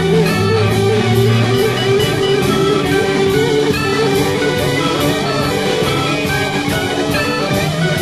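Early-1970s progressive rock instrumental passage, played by bass, drums and keyboards with no singing. Sustained notes run over a steady beat.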